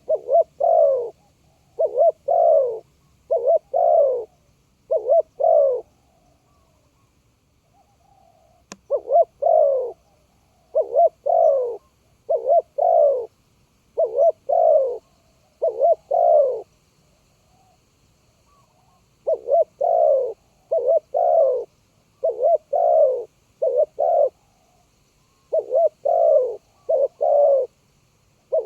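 Spotted dove cooing: short groups of two or three low, hollow notes repeated phrase after phrase, with two pauses of a couple of seconds. A single sharp click sounds about nine seconds in.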